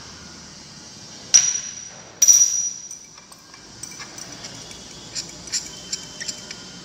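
Glass stirring rod striking the inside of a Borosil glass beaker, twice sharply about a second and two seconds in, each hit ringing briefly on a high tone, then a run of lighter clinks as the solution is stirred.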